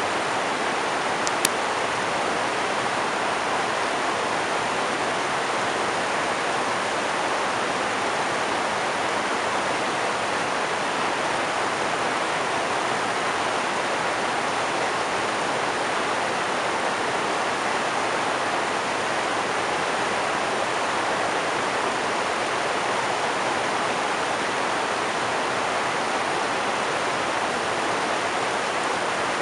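River rapids rushing over rocks: a steady noise of white water. A short faint click about a second and a half in.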